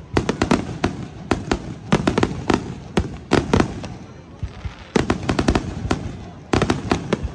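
Aerial firework shells bursting in quick clusters of sharp bangs and crackles, with a short lull about four seconds in before another run of bursts.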